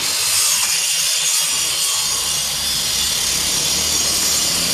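Large grinder cutting through masonry: a loud, steady hiss with no break.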